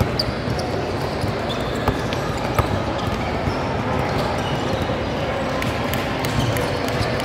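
Basketball game sounds: a ball bouncing on the court, with short sharp knocks now and then, over a steady din of voices.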